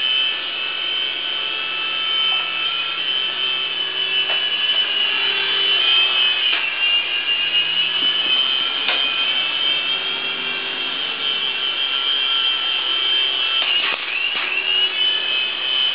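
Small radio-controlled toy helicopter's electric rotor motors and coaxial rotors whining steadily in flight. The pitch dips briefly about six seconds in and again about fourteen seconds in.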